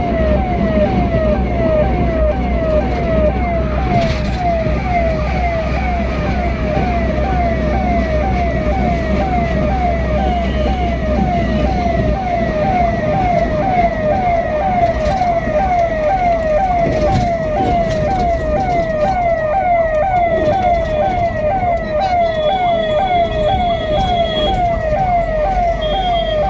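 Emergency vehicle siren in a fast repeating yelp, about two falling sweeps a second, over the low steady rumble of a moving vehicle.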